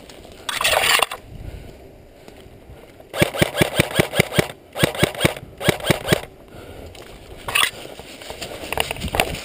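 An electric airsoft rifle firing three bursts of rapid shots, about eight a second: one long burst, then two short ones. Just before, about half a second in, there is a brief loud rush of noise.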